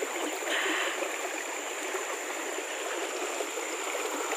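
Shallow river water running and trickling steadily, with a brief brighter splash of water about half a second in. A thin steady high tone sits above the water noise.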